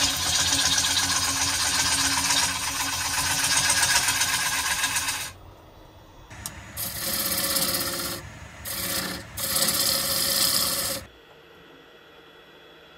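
A turning gouge cutting a spinning ash blank on a wood lathe: one continuous cut for about five seconds, then three shorter cuts, stopping about eleven seconds in.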